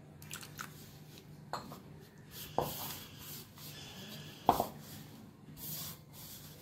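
Maida dough being kneaded by hand in a bowl, with water worked in: soft rubbing and squishing and a few light knocks against the bowl, the sharpest about two-thirds of the way through.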